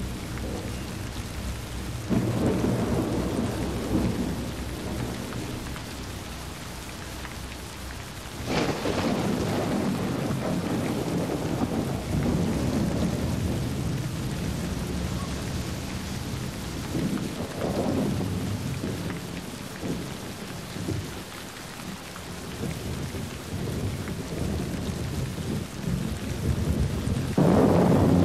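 Steady rain with rolling thunder. Rumbles swell about two seconds in, a sharper clap comes about eight seconds in, and a loud peal breaks just before the end.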